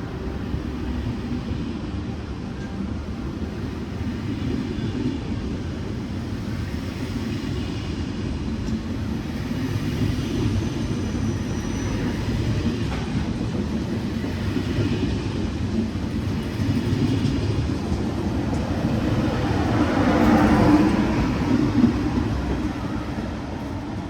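SNCF TGV inOui high-speed train running, a steady rumble that builds slowly and is loudest near the end before easing off.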